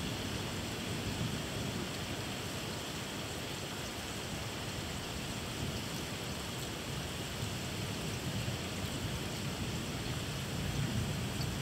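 Steady rain falling during a thunderstorm, with a low rumble underneath that swells a little near the end.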